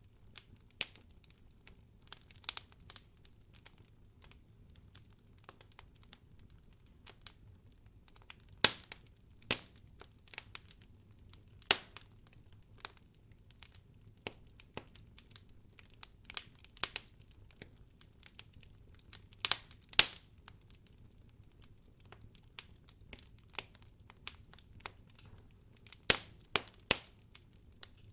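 Campfire of burning firewood crackling, with irregular sharp pops, a few of them louder, over a low steady background rumble.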